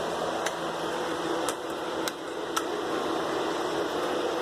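Steady mechanical hum with a low drone, with four faint sharp ticks spread through it.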